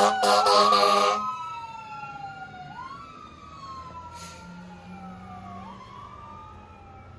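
Fire engine air horn blasting over a wailing siren; the horn cuts off about a second in. The siren keeps rising and falling in slow sweeps, growing steadily fainter.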